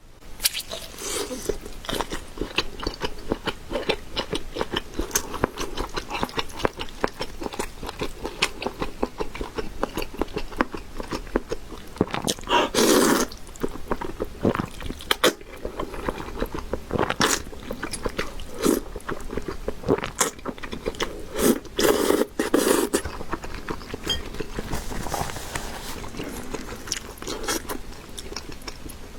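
Close-up eating sounds: biting into and chewing grilled pure-meat sausages, a steady run of wet smacks and clicks with a few louder bites about halfway through and again after twenty seconds.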